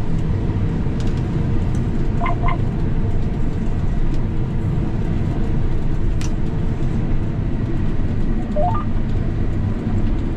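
John Deere combine running steadily, a constant low drone heard from inside the cab. Two short electronic beeps sound about two seconds in, and a short rising chirp near the end.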